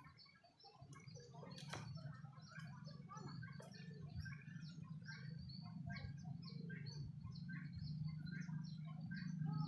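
Many small birds chirping and twittering together in a dense, continuous chatter. A steady low hum underneath grows louder from about a second in.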